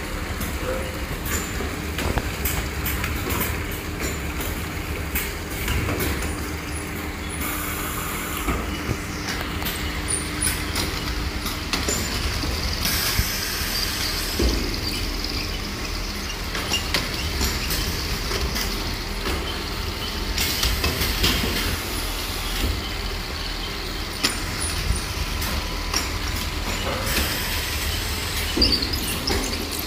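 Speed chain conveyor lines running, with steel fixture pallets riding on the chains: a steady mechanical rumble and rattle with frequent small clicks throughout.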